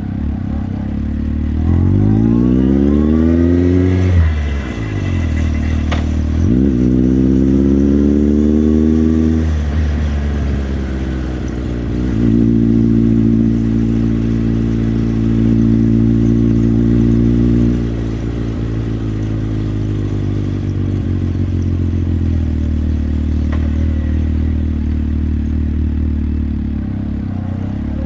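Motorcycle engine accelerating through the gears. Its pitch rises for a few seconds, drops sharply at a shift about four seconds in, and rises again. It then holds a steady cruise, eases to a lower steady note, and picks up once more near the end.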